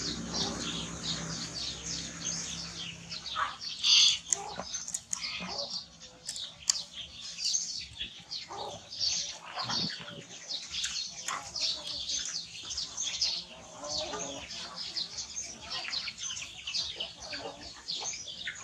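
Birds chirping continuously in many short, high calls, with one louder burst about four seconds in.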